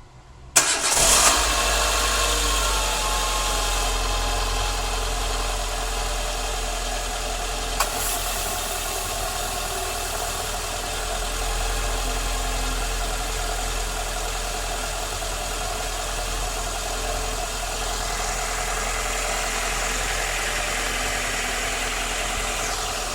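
Renault Logan's engine and air-conditioning system switching on suddenly, then running steadily with a constant hiss, one short click about eight seconds in. The owner hears a strange noise in the air conditioning.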